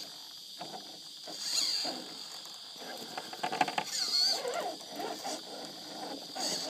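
Radio-controlled rock crawler (modified Axial SCX10 with a 55-turn brushed motor on 2S LiPo), its motor and gears whining up and down in pitch as it crawls, with its tyres and chassis scraping and knocking over rocks. A steady high-pitched buzz runs underneath.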